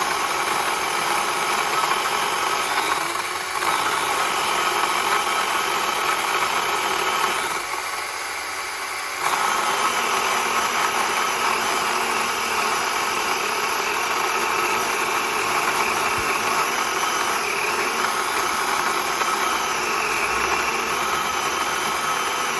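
DeWalt 20V battery chainsaw with a 16-inch Oregon bar running under load, ripping lengthwise through a log in a mini chainsaw mill. The sound drops briefly about 8 seconds in, then picks back up.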